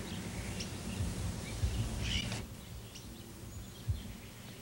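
Outdoor background noise with a low rumble and a few short, faint bird chirps; the background drops quieter about two and a half seconds in.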